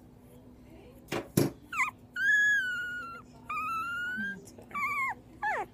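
A two-week-old Jack Russell–chihuahua–dachshund mix puppy whining and crying in a string of high, thin cries: one long cry, one rising cry, and short falling squeaks. These are the hungry cries of an unweaned puppy waiting for its bottle. Two quick knocks about a second in come before the cries.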